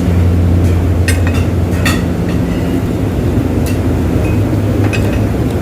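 A steady low machine hum, with a few light clicks and clinks scattered over it.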